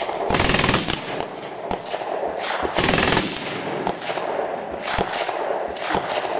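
Two short bursts of very rapid fire from an MG 42 machine gun (7.92×57 mm), the first about a third of a second in and the second near the three-second mark. Separate single shots crack in between and near the end.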